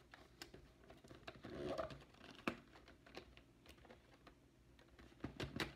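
Hands working at an action figure's cardboard box and plastic packaging: quiet, scattered clicks and crinkles, with a sharper click about two and a half seconds in and a few more near the end.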